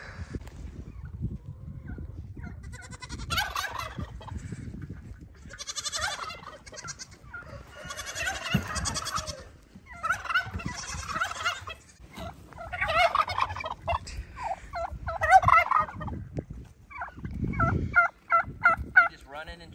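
Domestic tom turkeys gobbling over and over, each gobble a quick rattling burst. Near the end comes a quick run of about eight short, evenly spaced calls.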